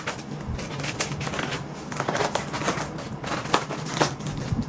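Scissors cutting open a parcel's packaging: crinkling and rustling of the wrapping with irregular snips and clicks of the blades.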